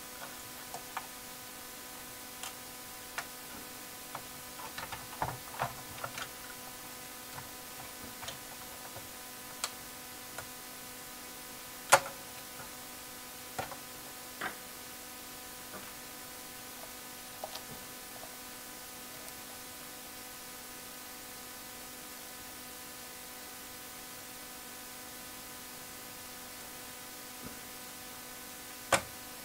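Scattered small clicks and taps of chips being worked out of and pressed into their sockets on an Apple IIe motherboard, over a steady electrical hum. One sharper click comes about twelve seconds in and another near the end.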